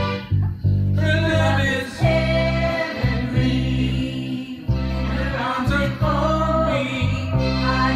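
Karaoke singing: a woman and a man singing into handheld microphones over a recorded backing track with a steady bass line.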